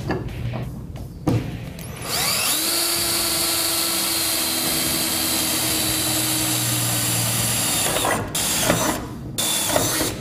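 DeWalt power drill with a 9/64-inch bit drilling through the sheet metal of a pickup bed's pillar. It spins up with a rising whine about two seconds in and runs steadily for about six seconds, then stops and runs twice more in short bursts near the end.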